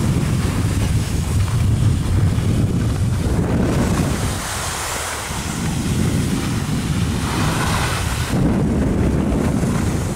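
Wind buffeting the microphone of a camera carried by a moving skier, a loud steady rumble, with the swelling hiss of skis sliding through slushy spring snow.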